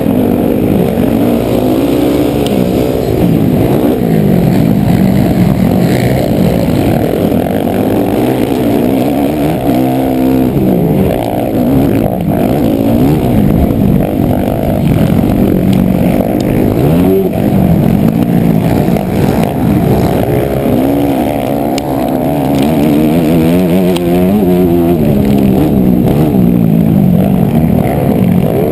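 Motocross dirt bike engine revving up and falling back again and again through the corners, with other racing dirt bikes close by, heard muffled from the rider's helmet camera.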